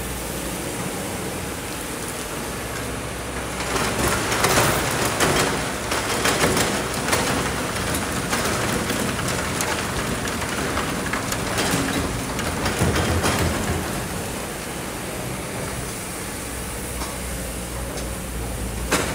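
Kobelco hydraulic excavator's diesel engine running steadily, with a long stretch of gritty pouring and stone clatter from about four seconds in until about fourteen seconds as the bucket handles a load of sand and rocks and dumps it into a dump truck bed.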